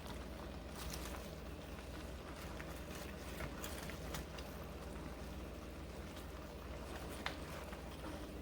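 Chopsuey vegetables cooking in a pan over a steady low hum, with a few faint clicks of a utensil against the pan as they are stirred.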